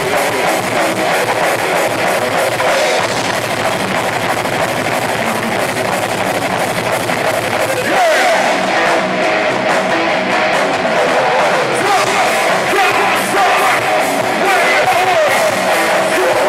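Live heavy metal band playing loudly on electric guitar and drum kit, with a change in the playing about eight seconds in where gliding guitar notes come in.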